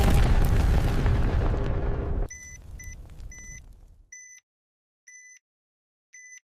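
A sound-effect explosion with a deep rumble, cut off sharply about two seconds in and leaving a quieter rumble that fades out. Over the tail an electronic bomb timer begins beeping: three short high beeps in quick succession, then three more about a second apart.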